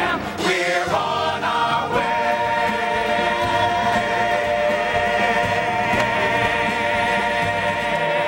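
Musical-theatre chorus singing the close of a show tune: a short sung phrase, then from about two seconds in one long held final chord with vibrato.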